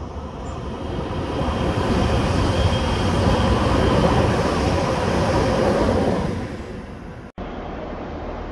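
A train passing on the line: its running noise builds over about two seconds, holds, then falls away about six seconds in. The sound breaks off abruptly about seven seconds in, and a lower steady rumble follows.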